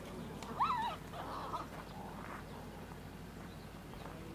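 A single short, wavering animal cry just under a second in, over a faint steady outdoor background.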